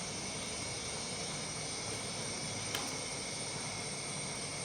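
Steady background hiss with thin, constant high-pitched tones running through it, and one small click a little past the middle.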